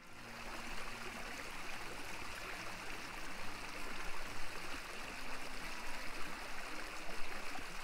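Shallow stream flowing over stones: a steady rush of running water.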